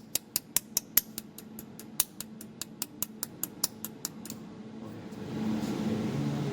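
Desktop pulsed laser spot welder firing a rapid train of pulses, a sharp snap with each one at about five a second, which stops a little over four seconds in. A steady low hum then grows louder.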